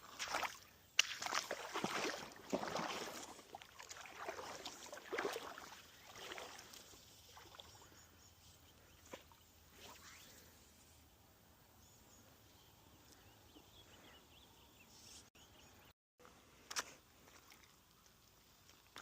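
Water sloshing and splashing in a run of uneven bursts over the first six or seven seconds, then a faint steady river background with a few small knocks.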